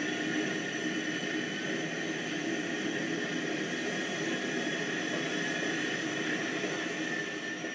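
Model railcar, a replica of the ETA 180 battery railcar, running along the layout track: a steady electric-motor whine with wheel rumble on the rails.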